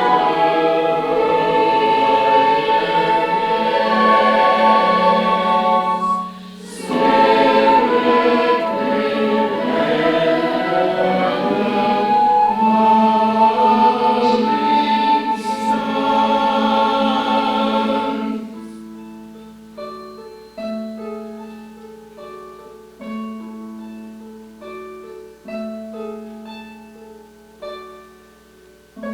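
Church choir singing with accompaniment, breaking off briefly for a breath about six seconds in. About two-thirds of the way through the voices stop and a piano plays on alone, more quietly, in separate ringing notes over a held low note.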